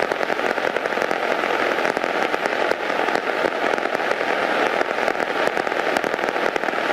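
Steady crackling static hiss over the aircraft radio, with a faint steady tone running through it.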